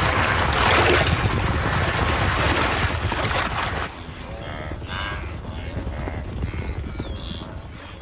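Loud splashing of river water as a crocodile strikes at a drinking wildebeest, stopping about four seconds in. Then wildebeest give a series of short calls.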